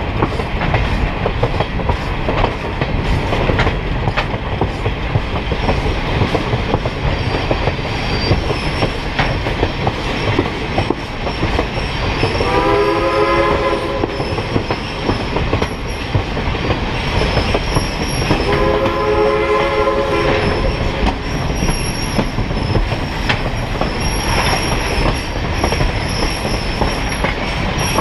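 Excursion train rolling steadily along the track with a continuous rumble of wheels on rail. The locomotive sounds two long horn blasts, one about twelve seconds in and one about eighteen seconds in. A faint high wheel squeal comes and goes in the second half.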